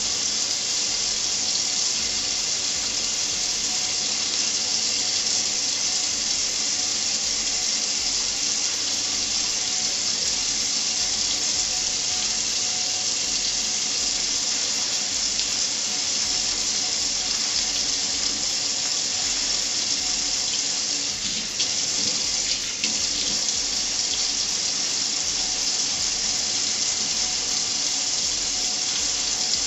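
Kitchen faucet running in a steady stream into a stainless steel sink.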